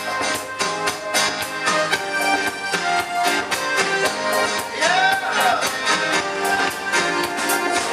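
Live band playing loud, upbeat dance music with a steady drum beat.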